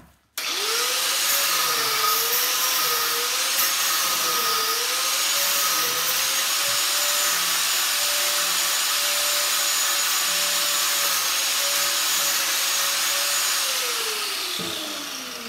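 Corded angle grinder starting up about half a second in and grinding around one side of a small electric motor's housing, its whine wavering under load at first and then holding steady. Near the end it is switched off and spins down with a falling whine.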